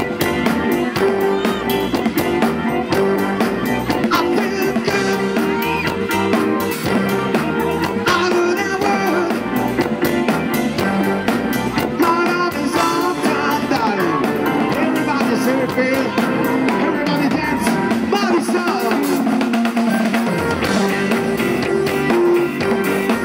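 Live rock band playing through a PA: drum kit, electric guitars, bass guitar and keyboard, with a singer's voice over them.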